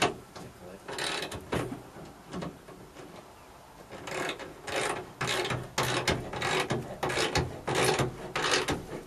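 Socket ratchet wrench clicking in short back-and-forth strokes as a bolt is tightened. There are a few strokes about a second in, then a steady run of about two strokes a second from about four seconds in.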